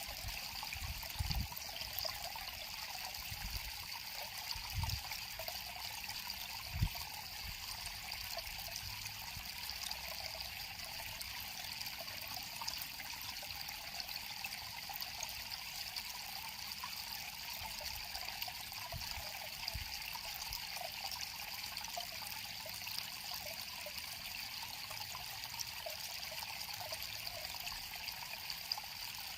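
River water flowing over rocks in a steady trickling, babbling rush. A few short, low bumps come in the first several seconds.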